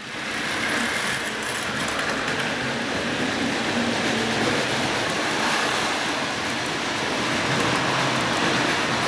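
Model trains running on a tabletop layout: a steady whir and rattle of small wheels and motors on track, with fine rapid clicking as the N-gauge sleeper train rolls over the rail joints and turnouts.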